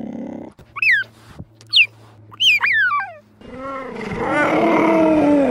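Cheetah calling: four short, high chirps that drop in pitch, then a longer, rougher call starting about three and a half seconds in.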